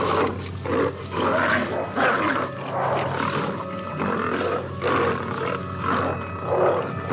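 A tiger and a bear fighting: repeated growls and roars, about one a second, over background music from a film soundtrack.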